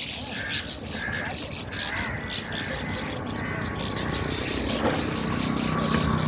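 Swallows calling at their mud nests, short chirps repeated over a steady high-pitched insect drone, with a low hum growing louder near the end.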